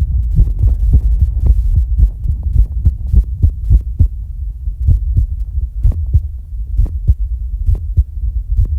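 Fast heartbeat heard close up, a low thumping pulse of about two beats a second, with the breath held after exercise so no breathing is heard over it.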